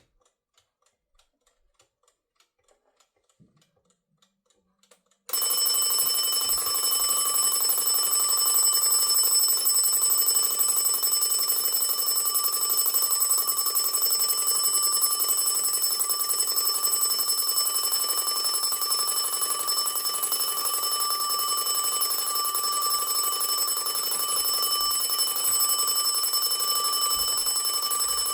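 Antique Junghans twin-bell alarm clock: faint ticking of the movement, then about five seconds in the alarm goes off suddenly, the hammer striking the two bells in a loud, steady, continuous ring.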